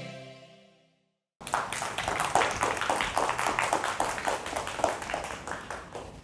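Intro music fading out, then after a short silence an audience applauding, dense clapping that starts abruptly and dies away near the end.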